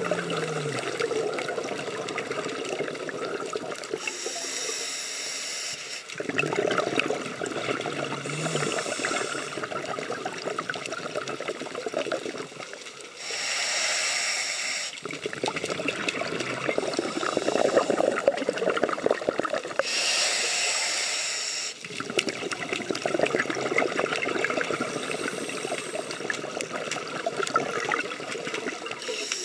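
Scuba diver breathing through a regulator underwater: long spells of crackling exhaled bubbles alternating with shorter hissing inhalations, a breath every several seconds.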